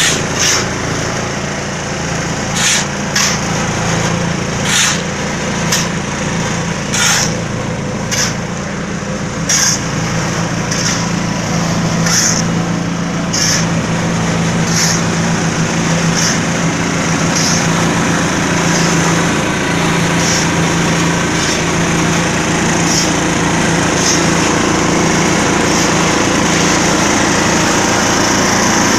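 Small diesel engine of a 280L concrete mixer running steadily, with a short high hissing clatter repeating about once a second that fades in the second half.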